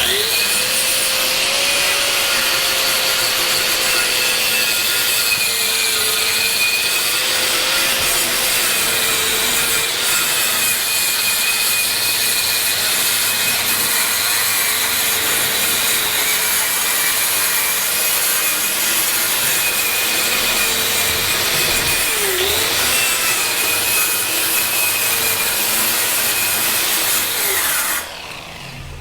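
Power-tool wire wheel scrubbing plasma-cut pickled-and-oiled steel to clean and shine it before painting. It starts at once and runs with a steady motor whine that sags briefly now and then as it bites, then stops near the end.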